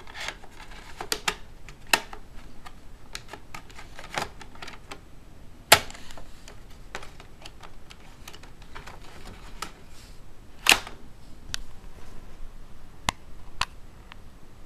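Plastic clicks and taps of a CD being handled and pressed onto a laptop's open optical-drive tray, with two sharper snaps, one about six seconds in and one about eleven seconds in.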